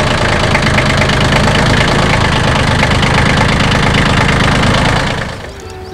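Compact tractor engine running steadily as the tractor is driven slowly. The engine sound drops away about five seconds in.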